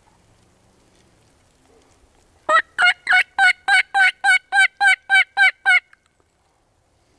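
Turkey call yelping like a hen: a run of about twelve evenly spaced, loud yelps, a little over three a second, starting about two and a half seconds in and stopping a little more than three seconds later.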